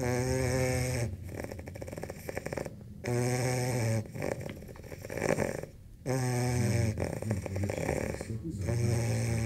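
Eight-week-old American Pit Bull Terrier puppy snoring in its sleep: a pitched, buzzing snore about every three seconds, each lasting about a second.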